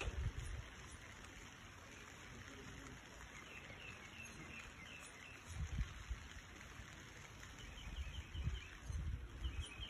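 Light rain falling, a soft steady hiss, with a bird chirping a few times and a few low rumbles on the microphone.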